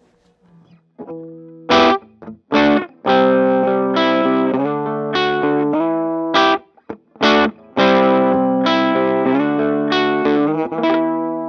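Electric guitar, a 2016 Gibson ES-335, played with a clean tone through an Acorn amp, the fuzz pedal bypassed. A riff of struck chords begins about a second in, and the last chord is left ringing.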